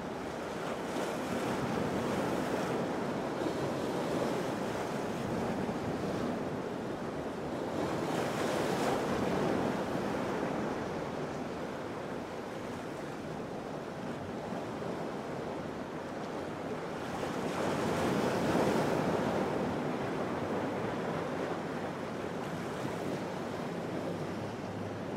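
Ocean surf breaking in a rough inlet: a steady rush of water that swells louder twice, about a third of the way in and again about three quarters through.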